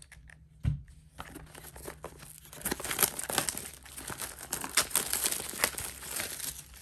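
Clear plastic shrink-wrap being peeled off a trading-card booster box and crinkling in the hands, a dense crackle that starts about two and a half seconds in and runs until just before the end. A short knock as the box is handled about a second in.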